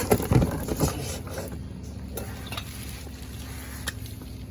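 A few short knocks and rustles as a new brake rotor is handled and set into its box, then a low steady hum.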